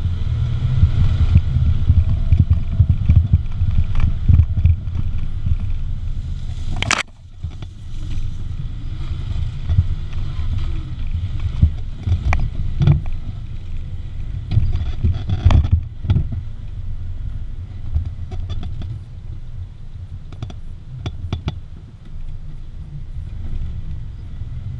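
Engine of an open-top 4x4 running at low speed over a rough dirt trail, a steady low rumble with scattered knocks and rattles from the bumps. A sharp loud knock comes about seven seconds in, after which it runs quieter.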